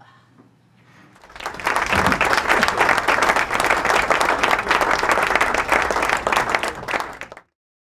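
Theater audience applauding: a dense clatter of many hands that starts about a second in, builds quickly to full strength and stays loud, then cuts off abruptly near the end.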